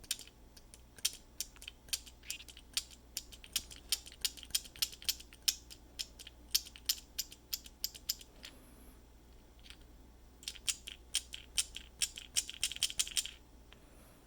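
Repeated sharp clicks of a 3D-printed key switch being pressed over and over, each click a small metal piece snapping up against the switch, about two or three a second; after a short pause, a fast flurry of clicks near the end.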